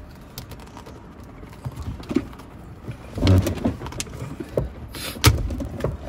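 Plastic trim and shift boot at the base of a Perodua Myvi's automatic gear lever clicking and rustling as they are worked loose by hand, then one sharp snap about five seconds in as the tight-fitting piece pops free.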